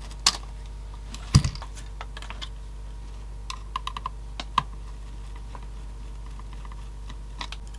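Small clicks and taps of plastic and metal parts of a mini CD player's spindle motor and mechanism being handled, with one louder knock about a second and a half in and a quick run of light ticks around the middle.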